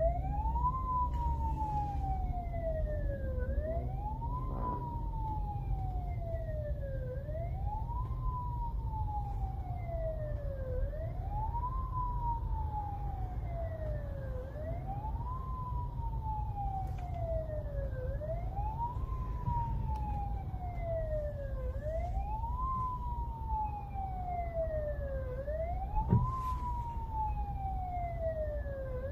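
Korean 119 ambulance siren wailing: each cycle rises quickly and falls more slowly, repeating about every three and a half seconds. It is heard from inside a following car's cabin over a steady low road rumble, with a single sharp click near the end.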